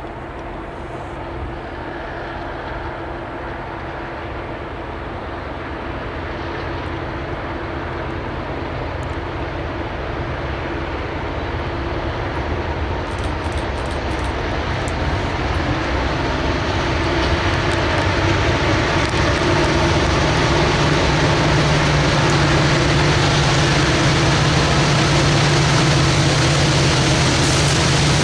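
Norfolk Southern diesel freight locomotives approaching on a manifest train. Their steady engine drone and the rail noise grow louder over the first twenty seconds or so, then hold steady as the train draws alongside.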